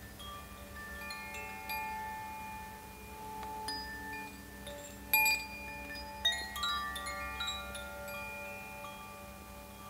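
Wind chimes ringing: many overlapping, sustained tones, each struck at irregular moments, with a sharper, louder strike about five seconds in.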